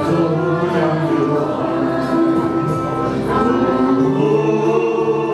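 A man and a woman singing a duet into microphones over a karaoke backing track.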